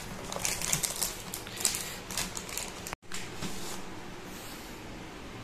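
Rapid clicks and rustles of hands rummaging among cables and a plastic bag to pick up a power bank. The clatter stops abruptly about three seconds in, leaving faint room noise.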